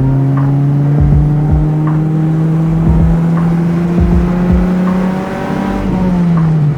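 Honda H22 four-cylinder engine in an Accord wagon pulling steadily through a gear on the road, its pitch climbing slowly, then dropping near the end as the driver lets off or shifts.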